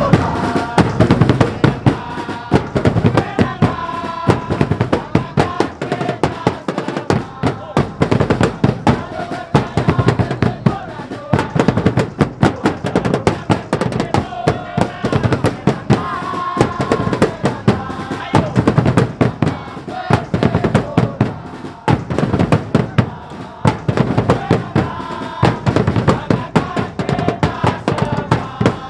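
Football supporters in the stand singing a chant in unison, backed by fast, steady drumming.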